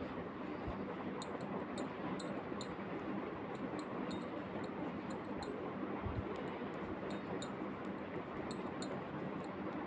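Metal knitting needles clicking and tapping lightly and irregularly as stitches are worked in wool, over a steady background hiss.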